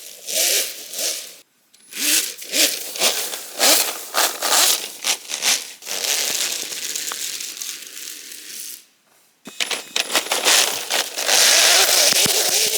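Alpha-6 3D-printed RC snowmobile running over snow: its track scrapes and churns the snow in uneven stop-start bursts, with a faint wavering motor whine at times. The sound cuts out briefly twice. The stuttering is typical of its sensorless brushless motor.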